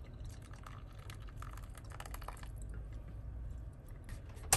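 Hot water poured from an insulated bottle onto coffee grounds in a paper filter, trickling and dripping through into a titanium mug, easing off about halfway through. A sharp click right at the end.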